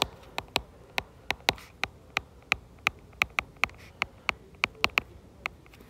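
Stylus tip tapping on an iPad's glass screen during handwriting: an irregular run of sharp little clicks, about four a second.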